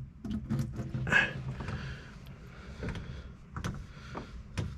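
Scattered light clicks and scrapes of a spin-on oil filter being turned off its threads by hand, with a few sharper knocks near the end.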